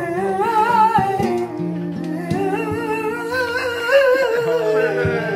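Male voice singing a long, wavering flamenco-style melisma with no clear words, the line drifting down in pitch, over guitar backing music.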